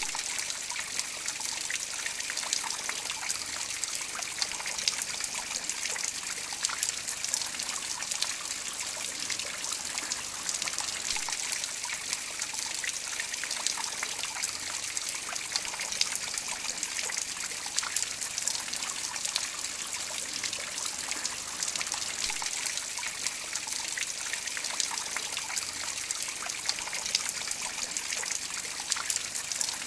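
Water trickling in thin streams off the leaf tips of a copper lily water feature and splashing onto stone slabs: a steady trickle dotted with many small drip splashes.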